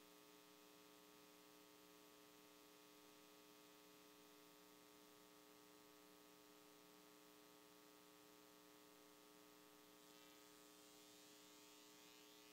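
Near silence: a faint, steady electrical hum with a stack of even tones, carried on the call's audio line.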